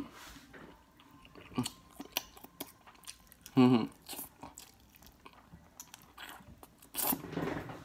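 A person biting into and chewing a piece of sauced chicken, with many short wet mouth clicks and smacks. A brief voiced sound comes about three and a half seconds in, and another louder one near the end.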